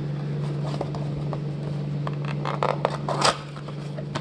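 The packaging of a Prestige 2020 NFL football blaster box being torn open by hand: a run of short ripping, crinkling noises, the loudest about three seconds in, over a steady low hum.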